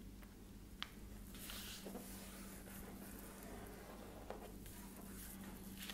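Faint rustling and sliding of a folded paper sheet being creased flat by hand on a table, with a sharp tick just under a second in, over a steady low hum.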